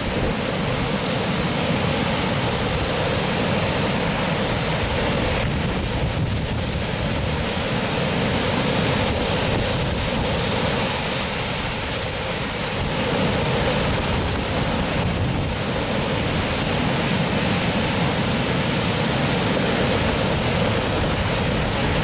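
Storm surf on the Black Sea: large waves breaking and foaming one after another, a continuous rush of water noise with wind.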